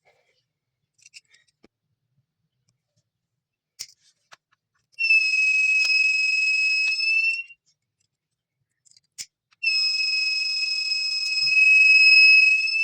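The piezo buzzer alarm of a homemade gas detector sounding two long, steady, high-pitched tones, each two to three seconds long, the pitch lifting slightly as each ends. A few faint clicks come before them.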